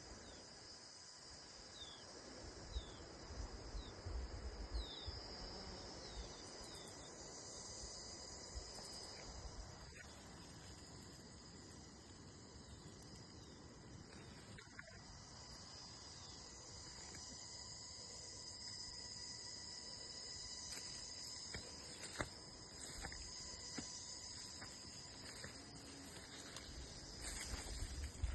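A steady chorus of crickets, a continuous high trill, with a run of short, falling bird notes during the first several seconds and a few low rumbles near the start and end.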